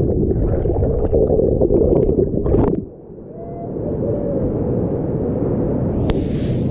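Whitewater river rapids heard with water washing over the camera: a muffled, low churning rumble with splashes, which cuts off suddenly about three seconds in. The open rush of the rapid then builds steadily, with a sharp splash or click near the end.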